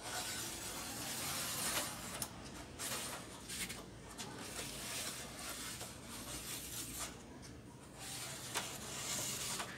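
Uneven rubbing and scraping as hands move and handle LED backlight strips on a TV's metal back panel, over a faint steady hum.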